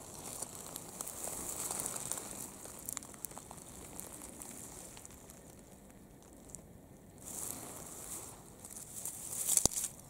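Dry grass and dead leaves rustling and crackling as a hand works among low plants, with scattered small clicks and one sharp click near the end.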